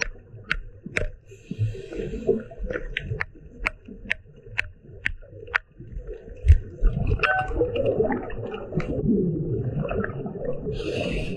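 Underwater hammer taps: a small hammer cracking shells against rock, a run of sharp clicks about two a second over the first half. Low bubbling rumble of a scuba diver's breathing and stirred water follows, with hissing bursts of exhaled bubbles.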